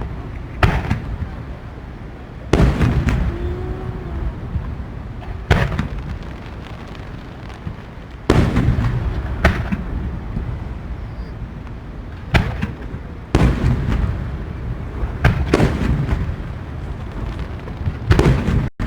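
Aerial firework shells bursting over the sea in a large display: about ten heavy booms a second to three seconds apart, with low rumbling echoes rolling on between them.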